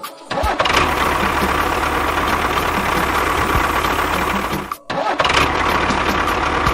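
A tractor engine starting and then running steadily. It cuts out abruptly just before five seconds in and starts again about half a second later.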